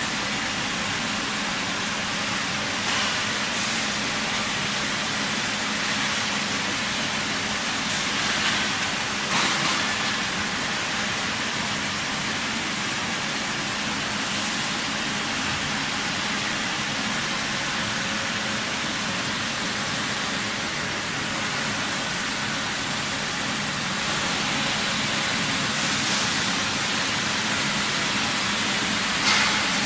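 Steady hiss and low hum of machinery on a pipe welding line, with a few brief louder flare-ups.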